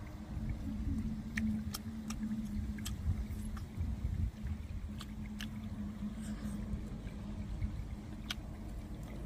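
Close-up eating sounds: chewing with scattered sharp mouth clicks and lip smacks, over a steady low hum and rumble.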